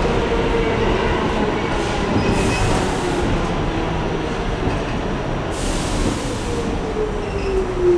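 A New York City subway car running through a tunnel, heard from inside: a steady rumble of wheels on the rails with a whining tone, and two brief bursts of hiss. Near the end the whine falls in pitch.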